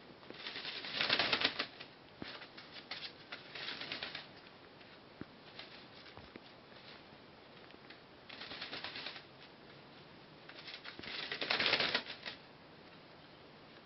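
A wet hooded crow shaking out its feathers after a bath: four brisk rustling flurries, the loudest about a second in and near the end.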